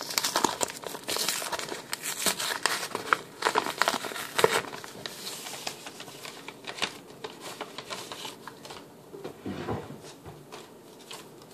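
Paper envelope being torn open and handled: irregular crinkling and crackling, busiest in the first half and then fewer and fainter.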